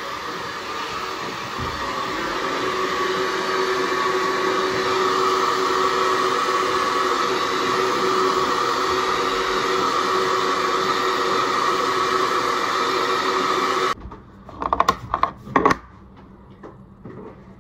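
Handheld hair dryer running with a steady whine over the rush of air. It gets louder about two seconds in and is switched off abruptly near the end, followed by a few short knocks.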